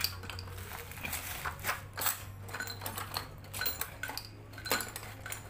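Irregular light metallic clicks and taps as the metal tubes of an Estrella Parco foot pump are handled against a concrete floor, over a steady low hum.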